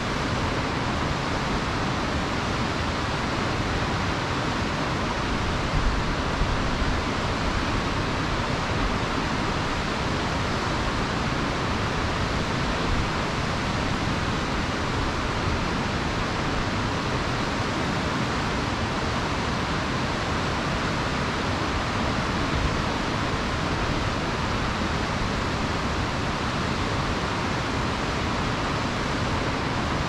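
Mountain river rushing: a steady, unbroken noise of fast-flowing water.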